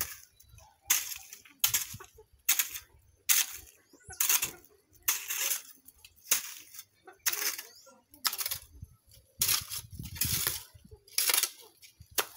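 A hand hoe's blade striking and scraping into dry dirt and weeds in a steady rhythm, a little faster than one stroke a second.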